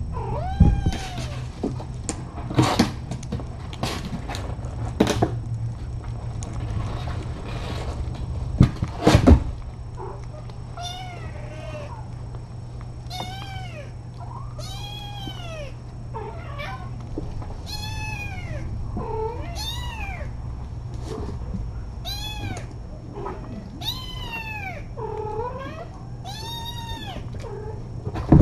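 Kitten meowing over and over, about once a second, each call rising and then falling in pitch. In the first ten seconds there are a few sharp knocks and clicks. A steady low hum runs underneath.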